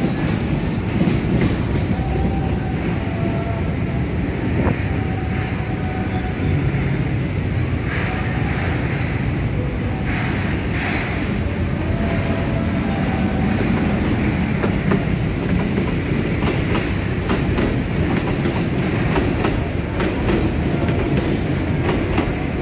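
KRL commuter electric train running across a steel-and-masonry railway bridge, a steady booming rumble with wheels clacking over the rail joints. Brief thin wheel squeals come and go several times.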